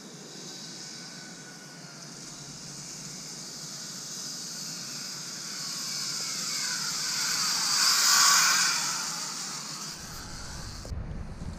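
Zip-line trolley running down the steel cable: a whirring hiss that grows louder as the rider approaches and peaks about eight seconds in as it passes, its whine shifting in pitch, then fades. Near the end it gives way to a low rumble of wind on the microphone.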